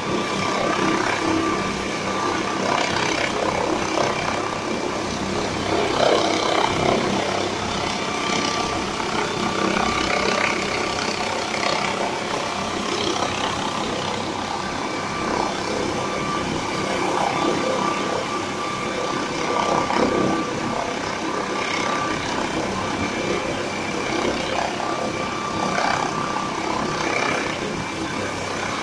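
Air ambulance helicopter's turbine engines running while it sits on the ground: a steady high whine over a broad rushing noise.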